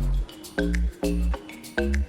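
Music with a repeating beat of deep bass notes in pairs, about one pair a second, with short high clicks over it.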